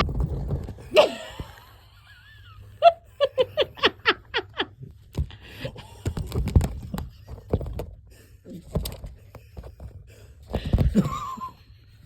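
A person laughing in a run of about eight quick bursts that fall in pitch, about three seconds in, among scattered knocks and rustles.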